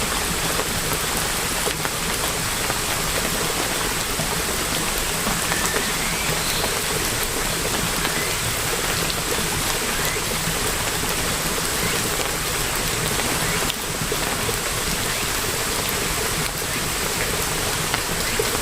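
Steady rain falling and pattering on surfaces, an even hiss with faint scattered drop ticks.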